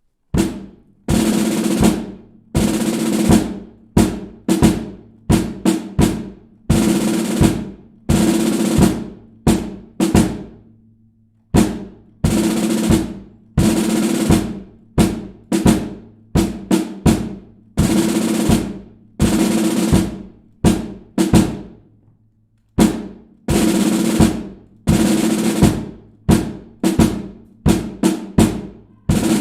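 Drum cadence on snare drum: quick phrases of rolls and accented strokes, the drum ringing after each hit. The drumming breaks off briefly about a third and about two-thirds of the way through.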